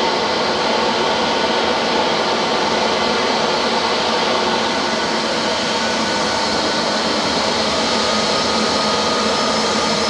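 Steady jet engine noise from an Airbus A320-251N's CFM LEAP-1A turbofans, a constant rushing roar with faint high whining tones over it.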